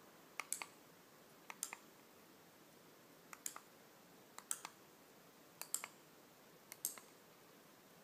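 Six short pairs of light plastic clicks, about one a second, from button presses on a handheld wireless lamp remote; each press switches one lamp of a six-lamp set off.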